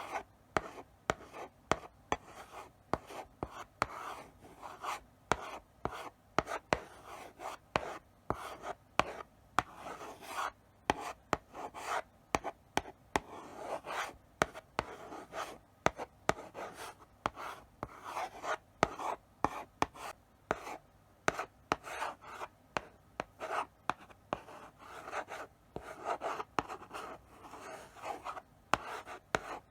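Chalk writing slowly on a blackboard: short scratchy strokes broken by frequent sharp taps as the chalk meets the board.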